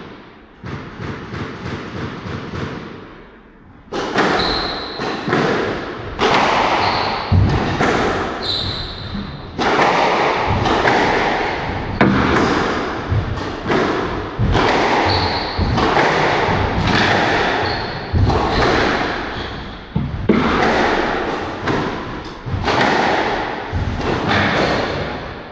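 A squash rally: the ball cracks off racquets and thuds against the court walls, a sharp hit every second or so, quieter at first and loud from about four seconds in. Short high squeaks come in between the hits.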